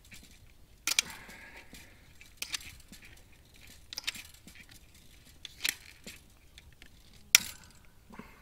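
Electric fence wire being wrapped by hand around itself to tie off at a strainer insulator, clinking metallically in five short sharp clicks about a second and a half apart, the loudest near the end.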